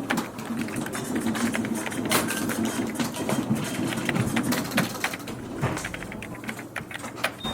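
Office ambience: a small office machine whirring mechanically while keys click irregularly throughout.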